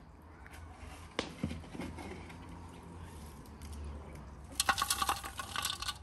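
A metal shovel knocking and scraping charcoal embers out of a clay tandoor, then a shovelful of embers tipped clattering into a metal basin near the end, the basin ringing under them.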